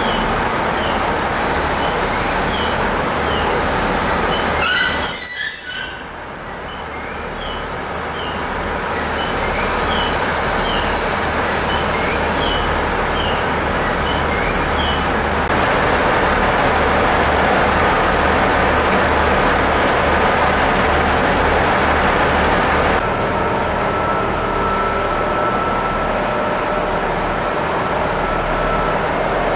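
A train running on rails, with a string of short, high wheel squeals through the first half. The sound dips sharply about six seconds in, then builds back to a steady rumble.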